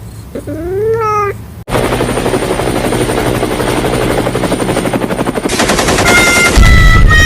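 A cat meows once, a single call rising then falling in pitch. It cuts off abruptly into a loud, fast rattling like rapid-fire shots. Near the end two steady high tones join in.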